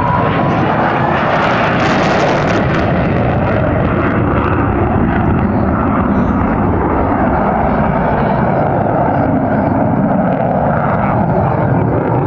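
Loud, steady jet noise from an F-22 Raptor's twin Pratt & Whitney F119 turbofan engines at high power.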